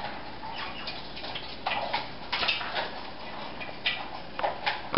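Baby Senegal parrots making a few soft, irregularly spaced clicks and short high chirps, mostly in the second half.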